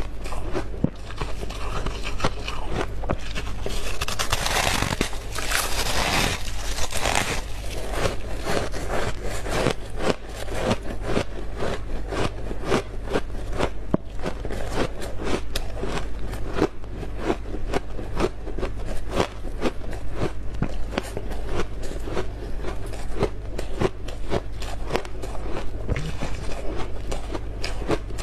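Freezer frost being bitten and chewed, close to the microphone: dense, rapid crunches throughout, with a louder scraping stretch about four to seven seconds in.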